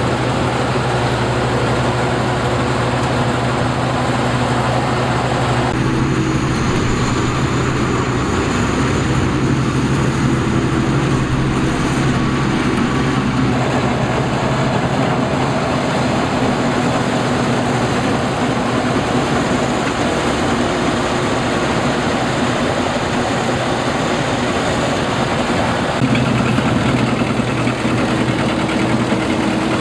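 Combine harvester's engine running steadily, its tone shifting a few times: about six seconds in, again around thirteen seconds, and near the end.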